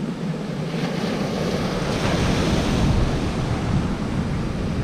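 Steady wash of sea surf on the beach, with wind rumbling on the microphone.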